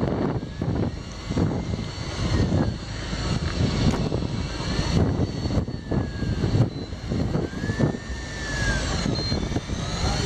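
Fishing boat's engine droning steadily, with wind buffeting the microphone and the sea rushing along the hull. Faint high whines rise and fall a few times over the drone.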